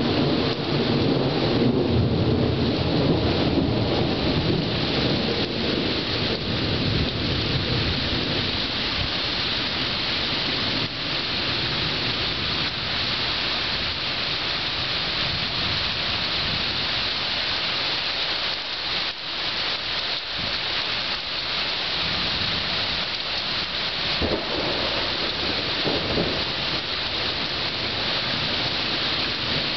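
Thunderstorm: steady heavy rain hissing, with a low rumble of thunder rolling through the first several seconds and dying away.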